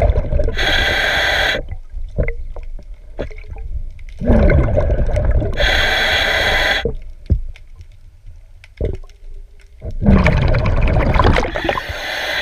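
A diver's breathing regulator underwater. Low bubbling rumbles of exhaled air alternate with a sharp hiss of inhaled air, a breath about every five seconds. Short scraping strokes of a hull-cleaning brush on the boat's bottom fill the gaps between breaths.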